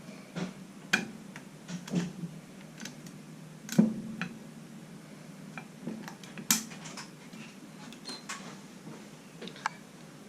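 Small metallic clicks and scrapes at irregular intervals, with two louder clicks about four and six and a half seconds in: a small flat-blade screwdriver prying a retaining ring around and out of its groove.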